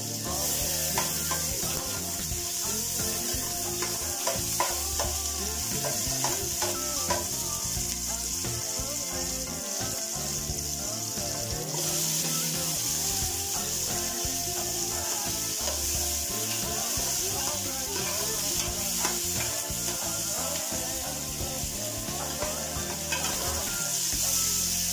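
Onion, garlic and tomato sizzling in hot cooking oil in an aluminium pressure cooker pot, with light knocks as the pieces are dropped in and moved about. The sizzle grows stronger about halfway through as more tomato slices go in.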